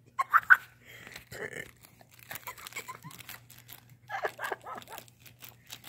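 Thin plastic snack-cake wrapper crinkling and crackling in rapid irregular bursts as a beagle licks and tugs at it. Short high-pitched vocal sounds break in near the start, the loudest moment, and again about four seconds in.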